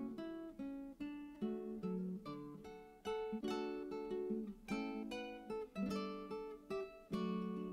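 Background music: an acoustic guitar picking a run of notes and chords, each struck and left to ring out.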